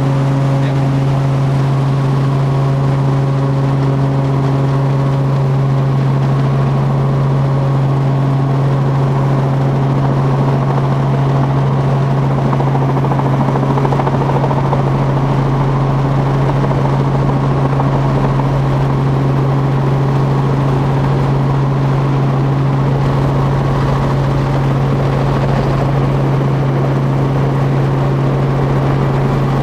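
Helicopter in flight, its engine and rotor making a loud, steady low drone that does not change.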